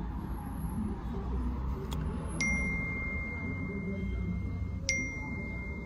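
Two chime dings, the second about two and a half seconds after the first. Each rings on as one steady high tone, over a low rumble.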